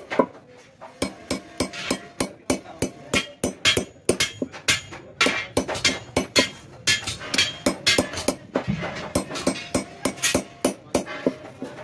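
Small hammer striking a hand-held steel punch again and again, chasing a decorative line into aluminium sheet. It is a steady run of sharp metallic taps, about three or four a second, each with a short ring.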